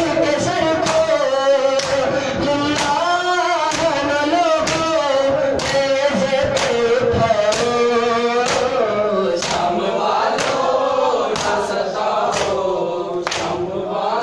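A group of men chanting a mourning lament (noha) in unison. It is marked by sharp, even slaps of matam, hands beating on chests, roughly once a second.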